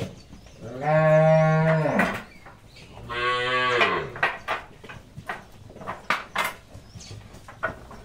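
A cow mooing twice: one long call of about a second, then a slightly shorter one, each falling in pitch at its end. Scattered knocks and clatter follow.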